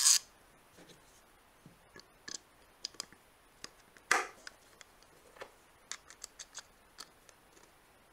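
Scattered small clicks and scrapes of plywood parts and a steel bolt and washer being handled while a plywood wheel is fitted onto its axle bolt, with one sharper wooden knock about four seconds in.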